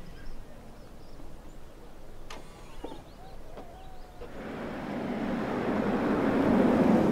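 Audi A6 e-tron concept electric car approaching on asphalt. It is quiet at first, then a rushing tyre-and-road noise builds steadily from about four seconds in as the car draws near.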